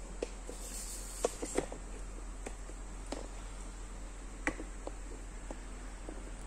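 Quiet room with a low steady hum and scattered light clicks and taps, the sharpest a pair about a second and a half in and another about four and a half seconds in. No pump or motor is running.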